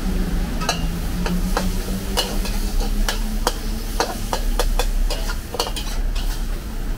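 Metal spatula clanking and scraping in a wok as food is stir-fried, with a steady sizzle underneath. The clanks come irregularly, about two or three a second.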